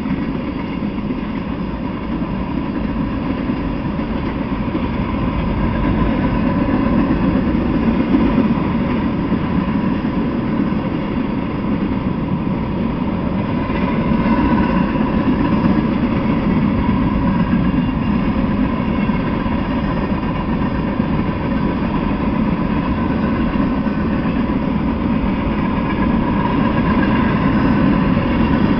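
Freight train of tank cars and covered hopper cars rolling past, a steady rumble of steel wheels on the rails.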